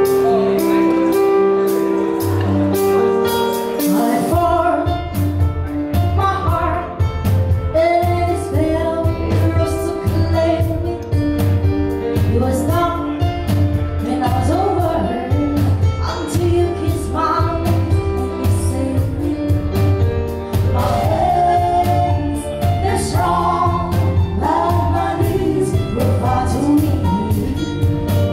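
Live band music: sustained keyboard chords open, then about four seconds in bass and drums come in and a woman starts singing the melody over the band.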